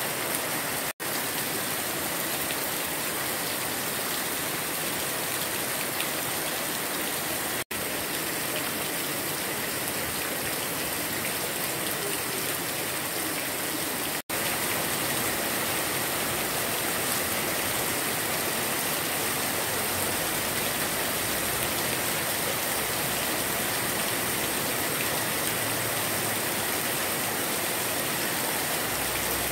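Heavy tropical rain pouring steadily, an even hiss of downpour. It is broken by three brief sudden dropouts: about a second in, near 8 seconds and near 14 seconds.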